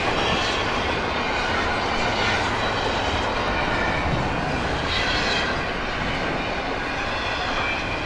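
Double-stack container cars of a CSX intermodal freight train rolling past at speed, a steady rolling rattle of wheels on rail. A faint high wheel squeal comes and goes, strongest around the middle.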